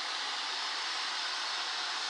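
Steady rushing noise, even and unchanging, with no tone or rhythm in it.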